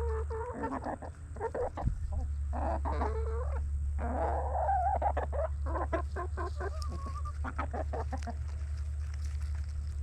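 Backyard hens clucking over and over while feeding on black soldier fly larvae, the calls thinning out near the end, over a steady low hum.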